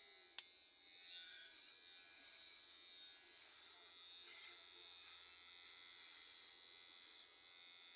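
Electric hair clipper buzzing steadily while cutting hair, with a single sharp click about half a second in.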